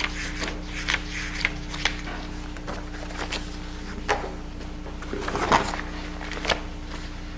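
Sheets of photocopied paper being handled and sorted, giving several short rustles and taps, over a steady low electrical hum.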